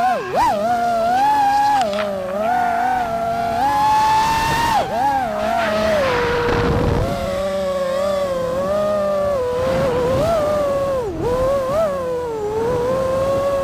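FPV quadcopter's motors and propellers whining, the pitch rising and falling continually with the throttle, with quick drops in pitch about five and eleven seconds in.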